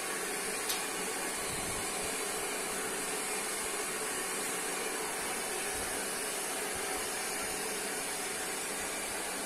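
Electric hair dryer running steadily, an even whoosh of blown air that does not change.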